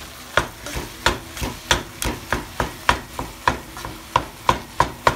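Wooden spoon repeatedly knocking and scraping against a nonstick pan while breaking up and stirring ground beef, about three sharp knocks a second.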